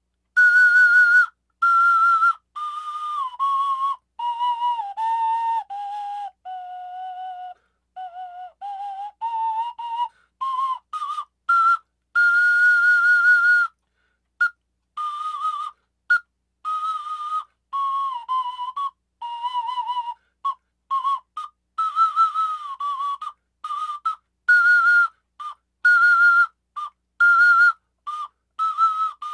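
A homemade one-octave Q-whistle, made from a short piece of plastic water pipe, a plastic plate with a hole and a taped-on straw, blown to play a clear whistle-like tone with a slight vibrato. It steps down a scale of about an octave and back up, then plays a tune of short notes.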